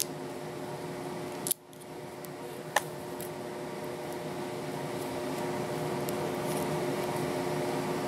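Scissor blades clicking against an aluminium soda can tab as it is squeezed and bent into a hook: a couple of sharp clicks, the loudest about three seconds in, over a steady electrical hum.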